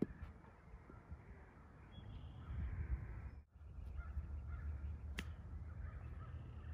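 Outdoor ambience: a steady low wind rumble with a few faint bird calls, cut by three sharp clicks, one at the start, one about five seconds in and one at the end.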